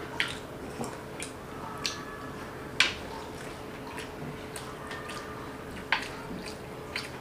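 Two people eating misal pav with their hands from steel plates: scattered short wet clicks, smacks and taps, the sharpest about three seconds in and another near six seconds, over a faint steady hum.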